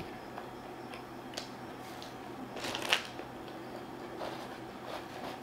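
Soft rustling and crinkling of McDonald's paper sandwich wrappers being handled, with small clicks and one louder crinkle about three seconds in.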